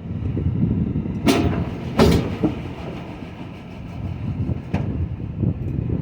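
Tractor-trailer moving the sliding tandem of an intermodal container chassis backwards, with a low engine and running-gear rumble. There are loud metal bangs about one and two seconds in, from the chassis and container shifting, and a lighter bang near the end.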